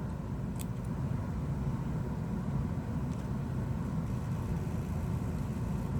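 Steady low background rumble, with a couple of faint small clicks.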